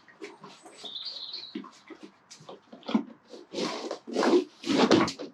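A horse snuffling and blowing through its nostrils as it noses a plastic feed bucket about in straw bedding, with soft rustling. Several loud blows come near the end.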